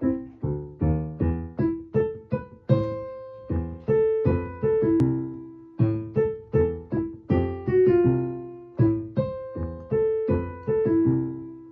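Solo grand piano playing a piece with short, separately struck notes in a steady rhythm over a low bass line. A few longer notes ring out and fade between the quicker phrases.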